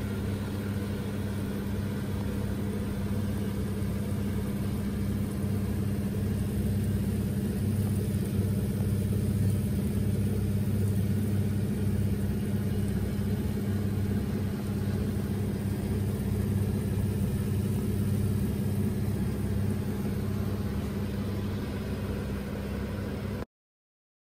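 Kitchen fan motor humming steadily, a low even drone that cuts off suddenly shortly before the end.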